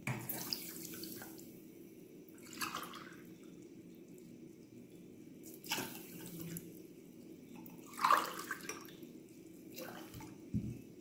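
Water poured from a drinking glass into a stainless-steel pot of sugar in several short pours, each a brief splash and trickle, the water for a sugar syrup.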